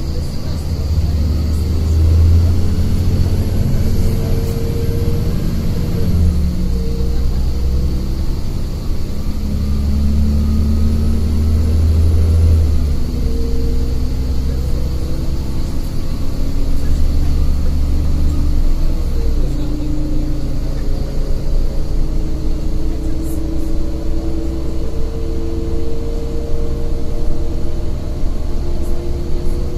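City bus engine and road rumble heard from inside the passenger cabin while the bus drives along. The engine note climbs and drops several times, and the deep rumble swells in three long stretches.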